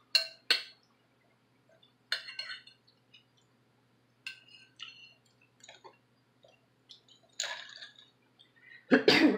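Mouth sounds of eating, with a metal fork clinking against a glass bowl: scattered short clicks and wet smacks. A loud throat noise comes near the end.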